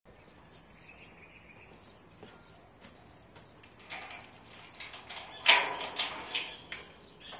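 A key working the lock of a metal security grille, with sharp metallic clicks and rattles that grow busier toward the end and a loudest clatter about five and a half seconds in.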